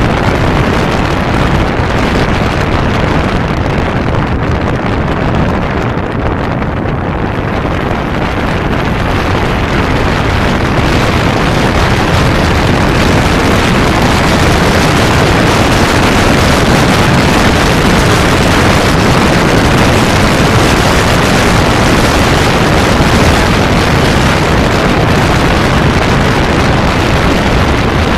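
Riding on a Kawasaki Zephyr 550 motorcycle: wind rushing over the microphone mixed with the running of its air-cooled inline-four engine. It eases a little about six seconds in, then builds louder again.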